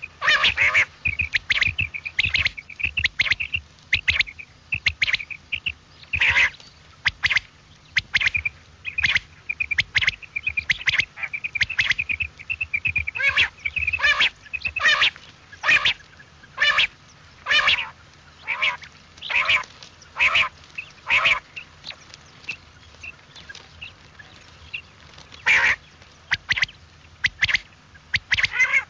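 Quail calling: short, sharp call notes repeating about once a second, with a fast high chirping trill running under them in places.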